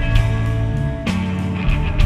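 A rock band playing live, with electric guitar chords ringing out and changing about once a second.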